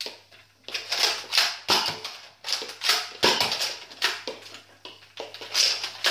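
Nerf Mega Cycloneshock blaster being primed and fired over and over: a quick string of sharp plastic clacks and puffs, two or three a second.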